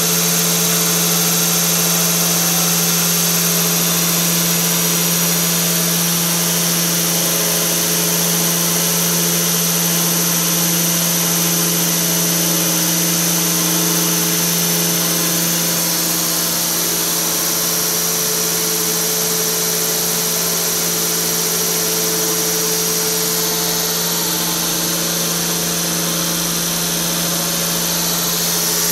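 Internal grinding machine running: the workpiece turns in the chuck while the grinding spindle works inside its bore under flowing coolant, giving a steady machine hum with a thin high-pitched whine.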